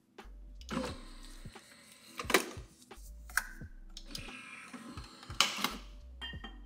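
Nespresso coffee machine being handled: its head is lifted open and pressed shut, giving sharp plastic clicks and clunks, the two loudest a few seconds apart, with small rattles of a capsule being dropped in between.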